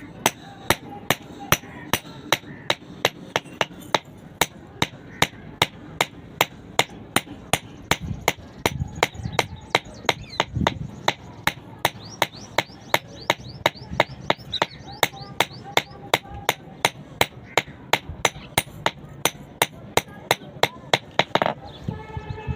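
Blacksmith's hand hammer striking metal in a steady rhythm of about two blows a second, each blow sharp and ringing; the hammering stops shortly before the end.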